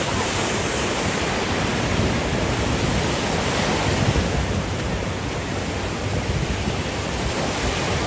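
Sea surf breaking and washing up the beach in foam, a steady rushing noise, with wind rumbling on the microphone.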